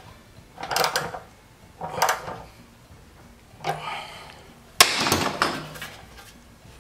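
Short metal clicks and clatter of a 13 mm wrench tightening the petcock's sediment bowl on a steel motorcycle fuel tank, then a louder metallic clank about five seconds in as the tank is handled on the workbench.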